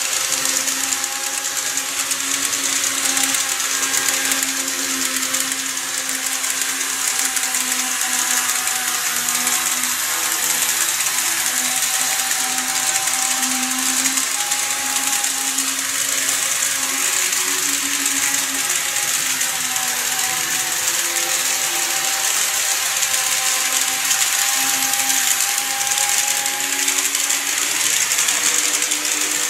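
N-gauge KATO E233-3000 series model train running steadily on its track: a constant high rattle of wheels on rail, with a low motor hum whose pitch wavers slightly.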